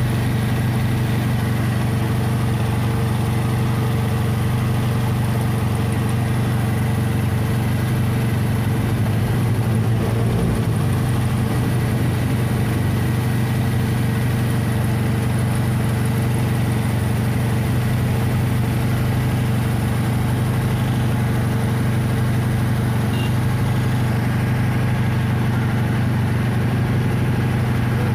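Suzuki Esteem 1.3 engine idling steadily, its fan belt running while candle wax is rubbed onto it to cure a belt squeal.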